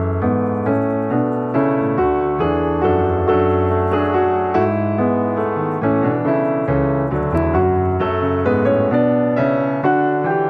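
Background piano music: a gentle melody of evenly paced notes over a sustained low accompaniment.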